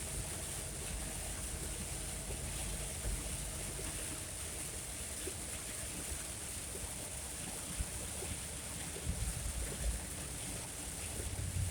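Heavy rain on a truck and its tyres on the wet road, heard from inside the cab: a steady hiss, with a few low thumps about nine to ten seconds in.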